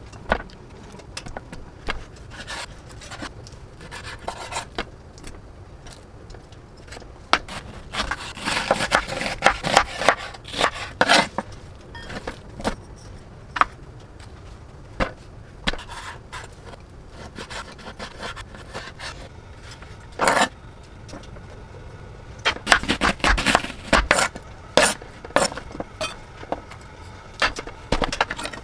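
A kitchen knife chopping on a wooden cutting board in two quick runs of taps, with scraping and knocks of bowls and utensils being handled in between.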